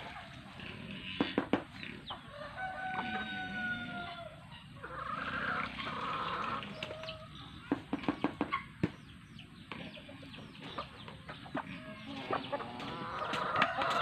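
Roosters crowing and chickens clucking, with one long crow held a couple of seconds in. About eight seconds in comes a quick run of sharp knocks as a plastic scoop taps against a plastic bucket.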